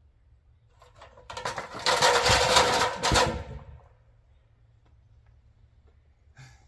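A handheld power tool runs in one burst of about two and a half seconds, a rapid, even chatter that starts about a second in and dies away before four seconds. A faint click follows near the end.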